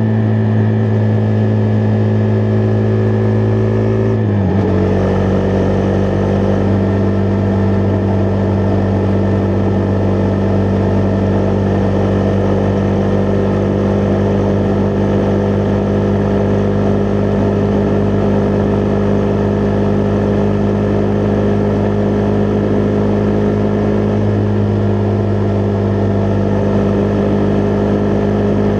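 Husqvarna Vitpilen 401's single-cylinder engine running steadily on the move, its note dipping briefly in pitch about four seconds in and then holding steady.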